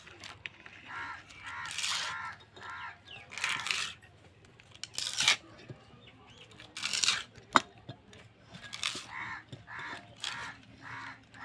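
A bearing puller being worked to draw a worn ball bearing off a ceiling fan: a series of short metallic scraping, creaking strokes as the puller is turned, with one sharp click about seven and a half seconds in.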